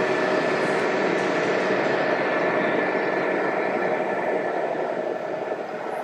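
Scale RC truck driving on the course, its engine-sound module giving a steady drone that slowly fades near the end.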